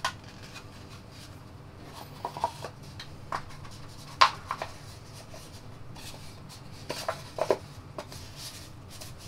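Molded paper packaging being handled and put aside: scattered light taps, rubs and clicks of stiff paper against paper and fingers, the sharpest about four seconds in.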